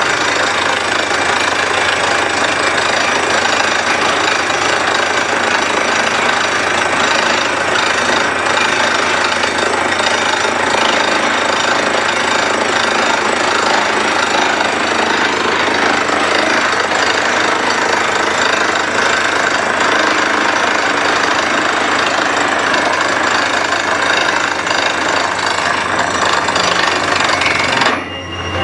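A truck-mounted borewell drilling rig running steadily as it drills, with the hammering knock of the drill working in the bore and the rush of compressed air blowing rock dust out of the hole. The noise drops for a moment near the end.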